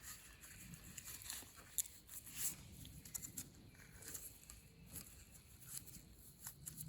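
Faint scattered clicks and rustling of hands working on the distributor, as spark plug wire boots are pushed down onto the cap terminals.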